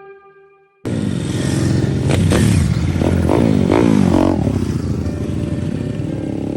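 Royal Enfield Interceptor 650 parallel-twin engine running, cutting in suddenly about a second in; its pitch rises and falls several times with the revs, then settles to a steadier note.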